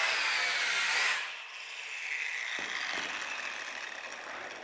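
Angle grinder with a cutoff wheel cutting through a steel fuselage longeron tube. About a second in the cut ends and the freed grinder winds down with a slowly falling whine that fades near the end.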